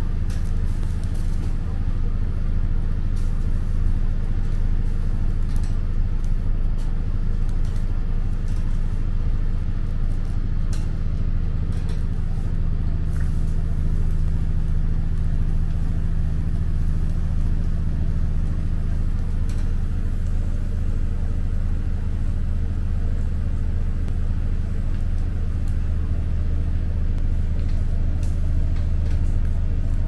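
A steady low mechanical hum with a constant low drone, and faint voices underneath.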